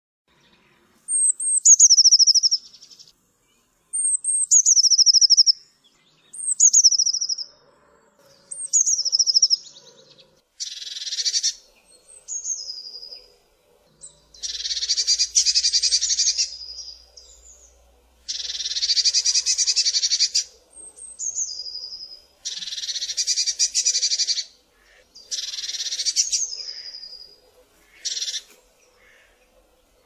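Eurasian blue tit calling: four high, thin notes each falling into a quick trill in the first ten seconds, then harsh, buzzy churring calls of one to two seconds each, alternating with brief high falling notes.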